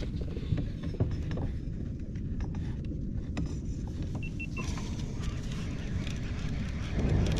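Low rumble of wind buffeting the microphone, with scattered clicks and knocks of gear being handled on a plastic kayak deck. Three short high beeps sound about four seconds in.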